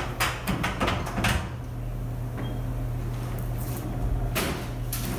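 A door knocking and rattling as it is pushed with a long pole: a cluster of sharp knocks in the first second and a half, then a noisier clatter near the end, over a steady low hum.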